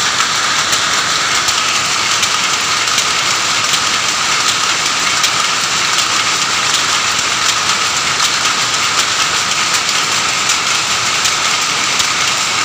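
Several power looms running together: a loud, steady, dense clatter of many overlapping sharp clicks.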